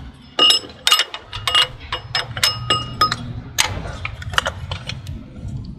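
Irregular metallic clinks and taps of hand tools and parts knocking against a motorcycle's engine and frame, a dozen or so sharp hits, several with a short ring.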